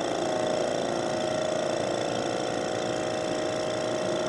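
Laboratory vacuum pump running steadily with a rapid, even buzz, pulling suction on a filter flask for vacuum filtration.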